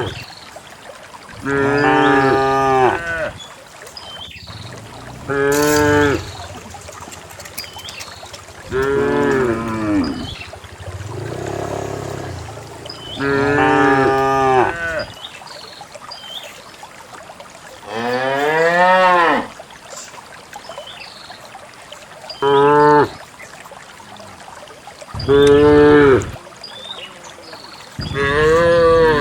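Cows mooing over and over: about nine long calls a few seconds apart, some rising then falling in pitch.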